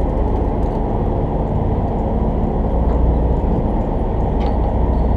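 A party fishing boat's engine running steadily with a low, even drone.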